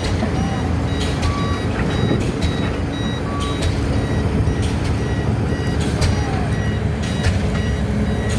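Pile-driving rig with a DD65 diesel hammer at work: heavy diesel machinery running steadily, sharp knocks recurring at irregular intervals of about a second, and a reversing alarm beeping over it.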